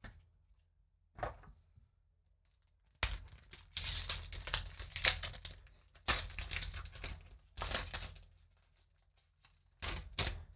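A Magic: The Gathering booster pack's foil wrapper being torn open and crumpled by hand: dense, irregular crinkling and crackling in several bursts from about three seconds in, with a shorter burst near the end.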